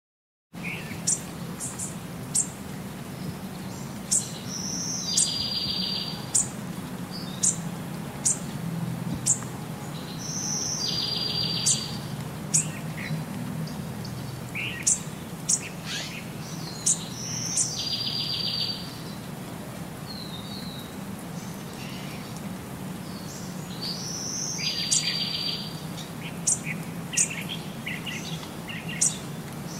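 Small birds chirping, with a short buzzy trill coming back about every six seconds, over a low steady hum.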